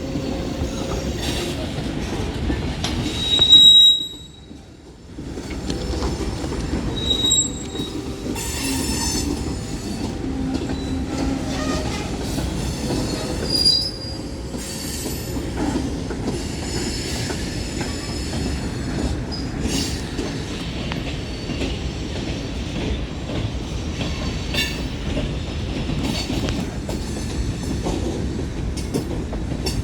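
Long freight train rolling past, cars rumbling and clattering steadily, with flange squeal from the wheels coming and going in thin high tones. The loudest squeal comes about three seconds in, followed by a brief lull.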